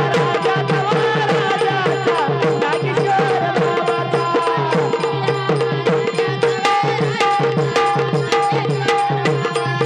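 Devotional bhajan music: hand-drum percussion playing a fast, steady rhythm over a held drone, with a gliding melody line above.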